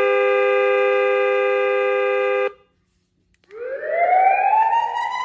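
Remote-control car sound module's speaker playing a steady two-note car horn, held until it cuts off about two and a half seconds in. After a short gap, a siren wail sweeps upward in pitch near the end.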